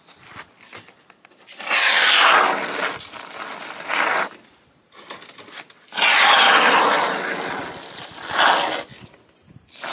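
Aerosol can of fire-block expanding foam spraying through its straw in two long hissing bursts, each falling in pitch and ending in a short louder spurt.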